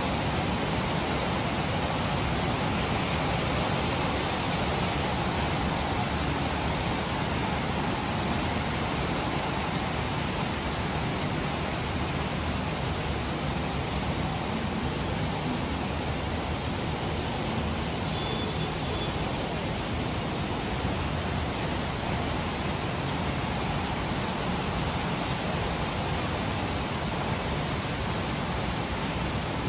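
Rain falling steadily: a dense, even hiss that holds at one level throughout.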